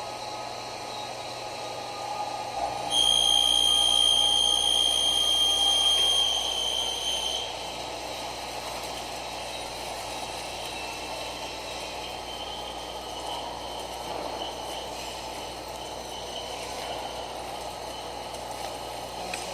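CNC drilling-milling machine running with a steady mechanical noise. About three seconds in, a loud, high-pitched squeal holds for some four seconds as the tool cuts into metal, then stops.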